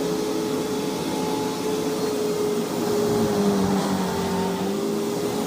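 Hoover WindTunnel Self-Propelled Ultra upright vacuum cleaner running at full speed just after being switched on, a steady motor whine over the rush of air; its motor is freshly rebuilt, with the top bearing greased and the suction fan washed. About three seconds in, a second, lower tone joins and wavers up and down.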